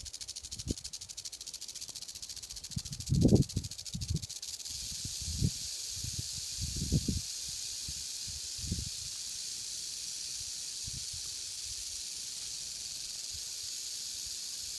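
Rattlesnake rattling its tail: a steady high buzz that does not let up, the warning of a disturbed, defensive snake. A few dull low thumps sound over it, the loudest about three seconds in.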